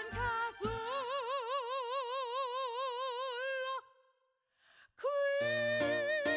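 Music with singing: one long held note with a wide vibrato, then a short break about four seconds in, after which music starts again with a held wavering note over a plucked bass line.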